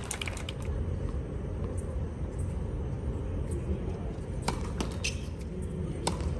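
Steady low hum of an outdoor tennis court, with a few sharp knocks of a tennis ball in the second half as a player serves.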